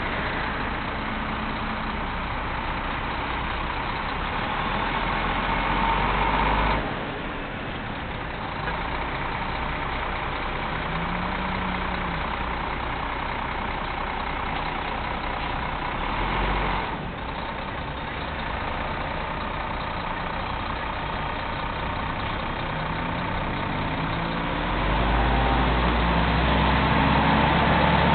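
Road traffic at an intersection picked up by an outdoor security camera's microphone: engines running and idling, with a heavy truck's engine growing louder near the end as its pitch climbs while it pulls through. The sound dips abruptly twice along the way.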